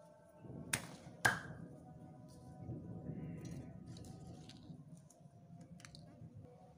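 Spices being handled on a stone mortar: two sharp clicks about a second in, then light scattered ticks and a soft rustle.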